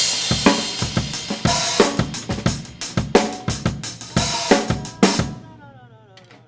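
Acoustic drum kit played fast, with kick, snare, hi-hat and cymbal hits in quick succession. The playing stops about five seconds in, leaving ringing that fades out while falling in pitch.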